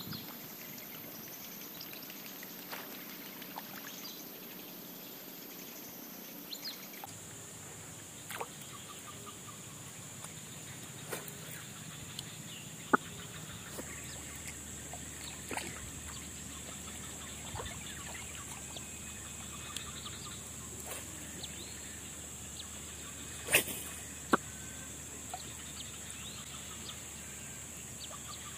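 Outdoor ambience at a tropical forest lake: a steady high-pitched insect drone over faint background noise, with scattered short clicks and knocks, the sharpest about 13 seconds in and twice around 24 seconds.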